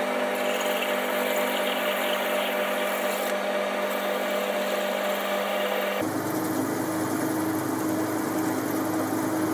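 Metalworking lathe running steadily, spinning a stick wrapped in emery cloth that polishes the bore of a steel part held against it by hand. Its hum is even, and its pitch changes abruptly about six seconds in.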